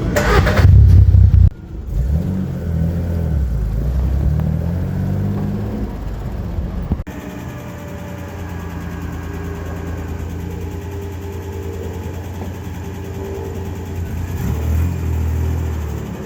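Road vehicle's engine pulling away and accelerating, its pitch rising and falling through gear changes; after an abrupt cut about seven seconds in, the engine drones steadily while cruising.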